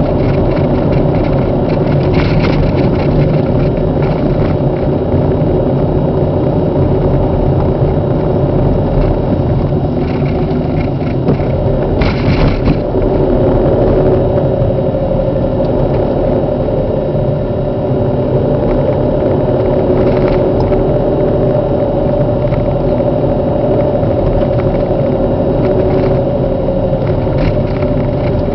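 Car being driven, heard from inside the cabin: a steady engine hum over road noise, with a few brief knocks, one of them about twelve seconds in.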